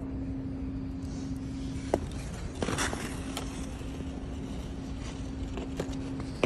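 Ice arena room tone: a steady low hum with a few sharp clicks and a short scrape about two and a half seconds in, as a hockey player stands and skates on the ice.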